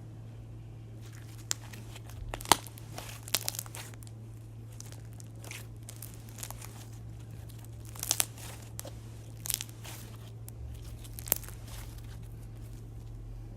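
Homemade slime being squeezed and pressed by hand, giving off sharp irregular crackles and pops in small clusters, with quieter stretches between.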